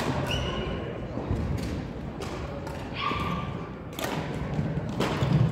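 Badminton doubles play: sharp racket hits on the shuttlecock about a second apart, with short high squeaks of court shoes and thuds of footfalls on the hall floor.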